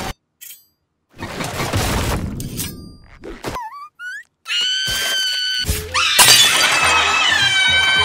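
Glass shattering loudly about six seconds in, under a shrill, held high note, over cartoon-style music.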